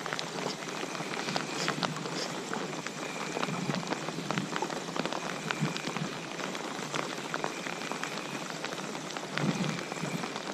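Steady patter of rain: many small drop hits close by, as on a rain jacket and boat.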